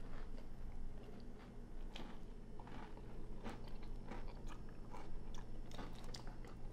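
A person chewing crunchy food spooned from a bowl, with scattered short crunches and light clicks of the metal spoon.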